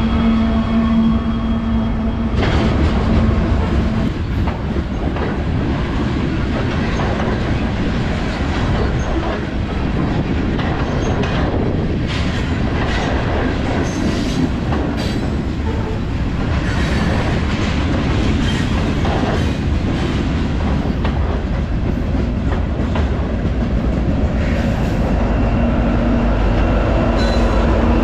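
Union Pacific train rolling past at close range. Its wheels clatter over the rail joints with some squeal. A steady low diesel engine drone is heard at the start and again near the end.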